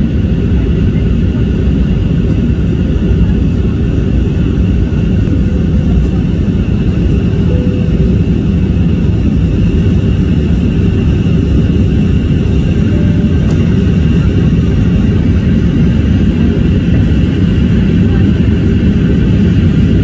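Jet airliner cabin noise in cruise flight: the steady low roar of the engines and the airflow, heard from inside the cabin, with a faint high whine held throughout.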